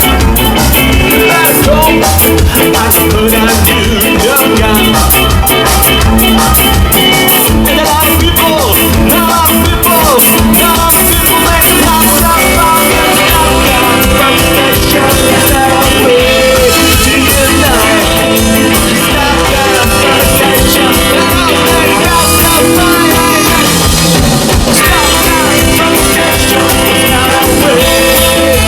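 Ska band playing live at full volume, a steady upbeat groove from the whole band.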